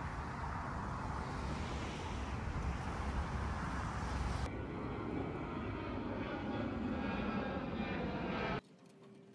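Steady outdoor rushing noise, then from about four and a half seconds in a jet airliner passing low overhead, its engines giving a steady rushing noise with a faint whine. The sound cuts off abruptly near the end.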